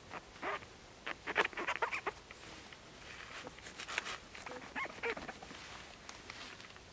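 Crackling, tearing and squeaking as a clump of wild mushrooms is pulled and worked loose by hand from rough tree bark. It comes in bursts of quick crackles about a second in and again around four to five seconds.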